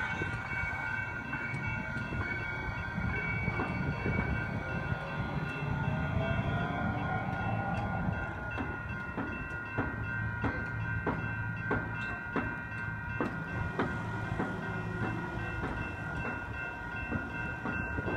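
VTA light rail train passing over the crossing: a low rumble, a motor whine rising in pitch, then wheels clicking over the rail joints for several seconds. Throughout, the crossing's General Signals type-2 electronic bells ring steadily.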